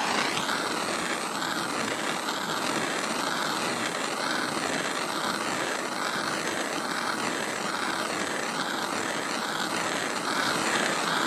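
Handheld gas torch burning with a steady hiss as its flame plays on a steel compressor rotor. The hiss swells and fades about once a second.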